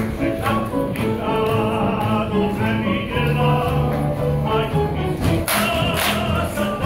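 A large choir of young voices singing a song together in chorus, with sustained sung notes and a few sharp percussive hits.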